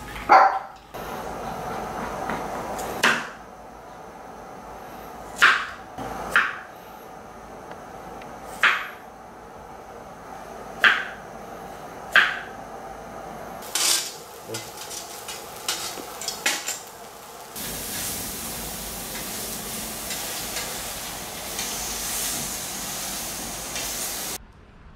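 Sharp knocks of food preparation on a wooden table and cutting board, about nine spread unevenly over the first seventeen seconds, then a steady hiss for several seconds.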